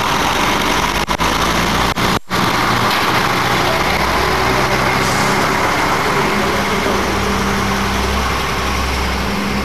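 A bus engine running steadily with a low hum, against a constant background hiss. The sound cuts out very briefly about one and two seconds in.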